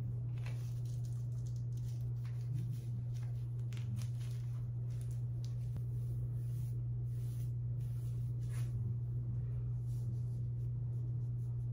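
A steady low hum, with faint scattered rustling of hands working through hair and a headband wig.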